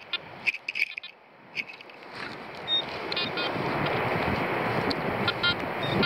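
Wind noise on the microphone, building from about two seconds in, with short bursts of rapid beeping from a handheld metal-detecting pinpointer probing dug sand. A few sharp clicks come in the first second.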